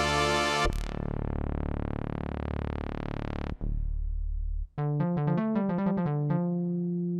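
FM synthesizer sounds from Yamaha's DX7 library played on a MODX/Montage keyboard. A bright held chord dies away into a low sustained tone. After a short break about two-thirds in, a quick run of separate notes ends on a held note.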